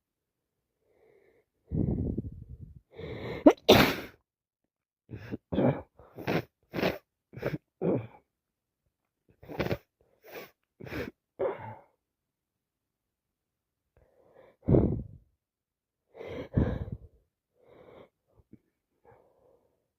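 A woman sneezing over and over with a cold and allergies. A loud sneeze comes about three and a half seconds in, followed by runs of short, quick bursts, then two more single sneezes later on.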